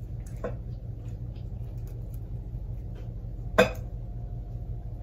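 Fingers picking at a sandwich on a ceramic plate: faint small clicks, and one sharp clink against the plate about three and a half seconds in that rings briefly. A steady low hum runs underneath.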